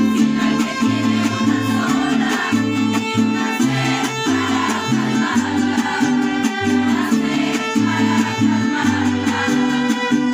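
Mariachi band playing an instrumental passage: violin melody over a steady alternating bass line and strummed rhythm chords.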